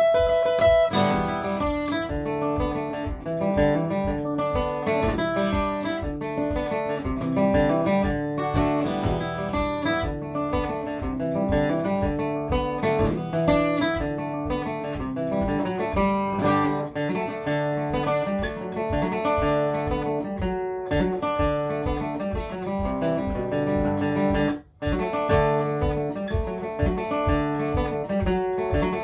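Acoustic guitar played solo: a steady run of picked notes over bass notes, with no singing. The sound cuts out for an instant about three quarters of the way through.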